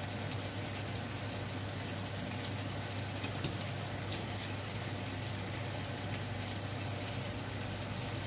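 Satay skewers sizzling in a nonstick frying pan: a steady crackle with scattered small pops, over a low steady hum.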